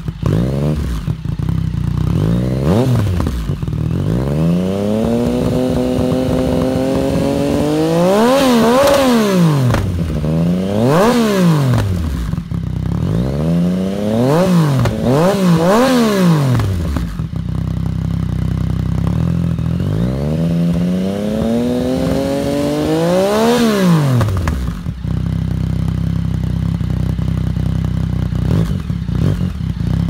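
Yamaha XSR900's inline three-cylinder engine through a Zard aftermarket exhaust, revved from idle: a short blip, a long climb in revs that peaks and falls back, several quick blips, another long climb and fall, then a steady idle.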